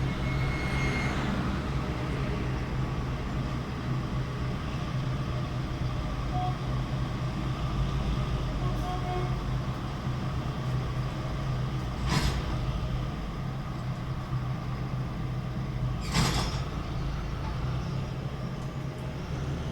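Steady low engine drone, with two brief whooshing sweeps about twelve and sixteen seconds in.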